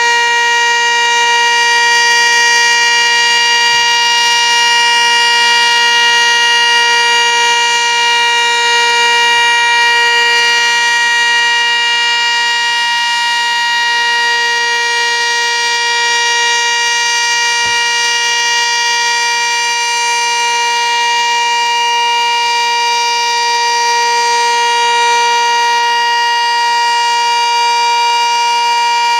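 Sentry 15V2T two-tone outdoor warning siren sounding its weekly test: a loud, steady chord held at constant pitch, its loudness swelling and easing slightly.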